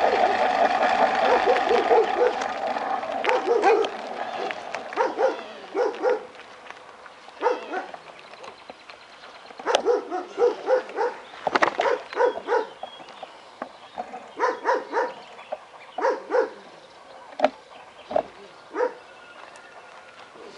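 A dog barking in runs of several quick barks, again and again with pauses between. A steady hum fades out over the first few seconds.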